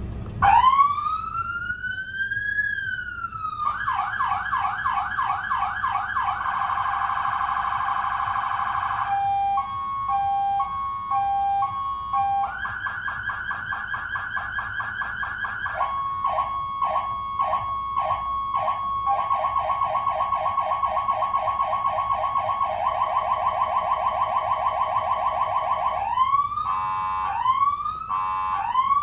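PSS Szczęśniak PS200 electronic siren modulator on a fire engine stepping through its siren tones. It opens with a slow wail that rises and then falls, then moves through fast yelps, a two-tone hi-lo, a pulsed tone and rapid warbles, changing pattern every three or four seconds. It ends with short rising whoops.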